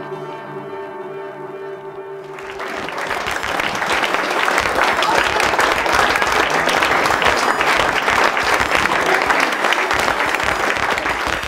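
A held chord of music, then about two and a half seconds in an audience breaks into applause that swells and keeps going.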